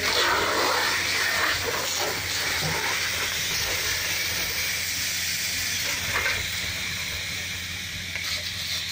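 Fire hose water jet hitting the smouldering wreck of a burning wooden boat: a steady hiss of spray and steam, a little louder in the first couple of seconds, over a low steady hum.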